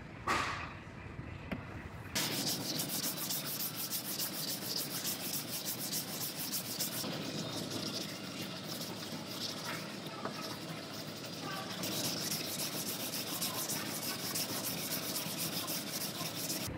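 Plastic spreader scraping body filler across a car's steel roof panel: a short scrape near the start, then a steady run of fast, close scraping strokes from about two seconds in.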